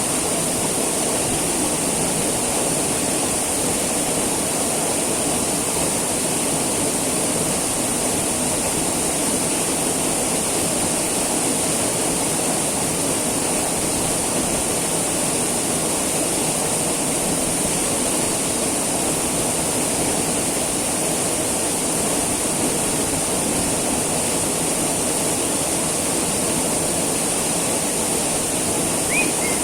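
Waterfall pouring steadily: a constant, unbroken rush of falling water, with a steady high hiss above it.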